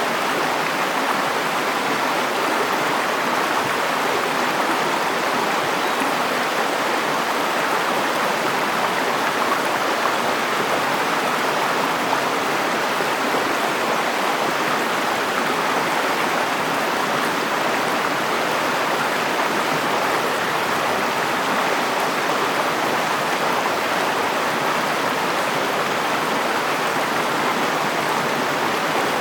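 River water flowing, a steady, unbroken rush of water.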